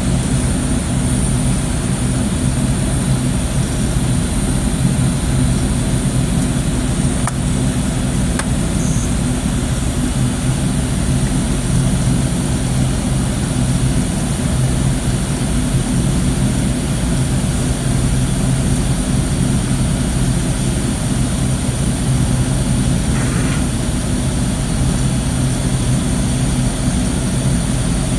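Steady mechanical drone with a low hum, like a running engine or motor, holding at one level.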